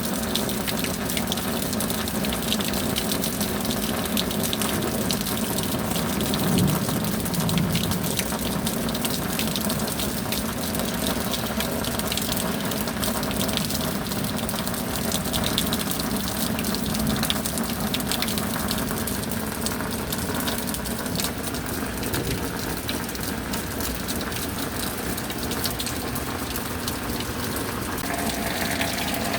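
Steady rain with a continuous rush of gushing, pouring water.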